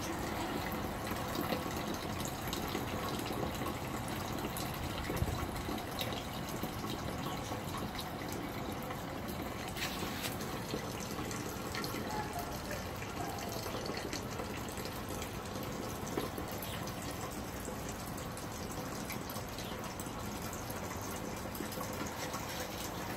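Steady rush of running water, with a few small clicks.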